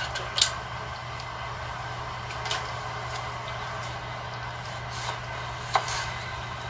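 A few light, scattered knocks of a kitchen knife on a cutting board as raw chicken breast is cut up, over a steady low hum. The sharpest knock comes about half a second in, another near the end.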